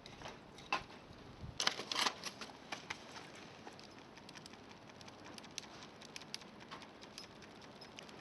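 Wood campfire crackling: irregular sharp pops and snaps over a faint hiss, with a quick cluster of louder pops a couple of seconds in.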